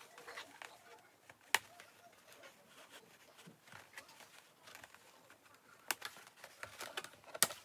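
Scissors snipping the plastic ties that hold doll clothes to a cardboard insert: a few sharp snips, one about a second and a half in and two near the end, with faint handling rustle between.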